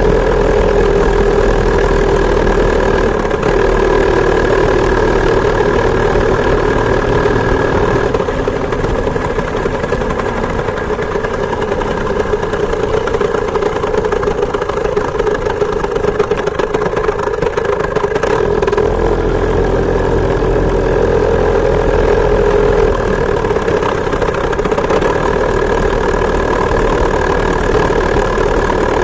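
Two-stroke chainsaw engine powering a homemade moped, running steadily under way. Its pitch drops slightly for a stretch in the middle and picks up again.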